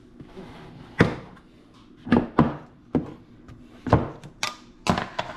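Locking tabs of a plastic snap-lid food storage container being unclipped: a series of sharp plastic snaps and clicks, some in quick pairs.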